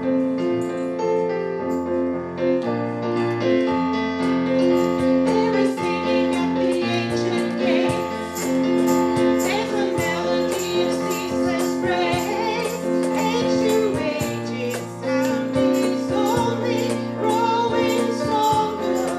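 Worship music for congregational singing: keyboard chords open the song, and singing comes in partway through.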